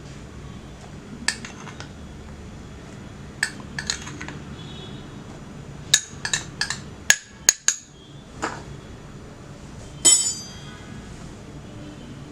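Kitchen utensils clinking against a mixing bowl: a dozen or so scattered sharp taps and clinks, bunched together around the middle, a few ringing briefly, as caster sugar goes in with the eggs before beating.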